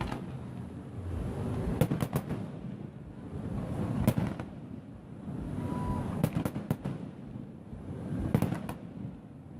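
Fireworks display: sharp bangs in quick clusters of one to four, about every two seconds, over a steady low rumble.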